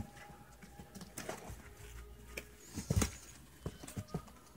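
English springer spaniel puppies giving faint, thin whimpers and squeaks, mixed with soft knocks and scuffling as they clamber about the box. The loudest sounds are a couple of knocks about three seconds in.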